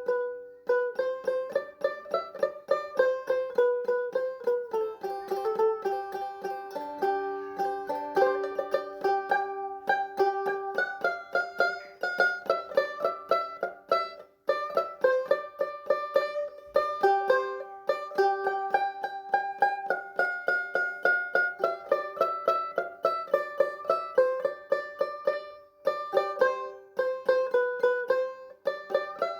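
Background music: a fast plucked-string tune, many quick notes a second, with a short pause about halfway through.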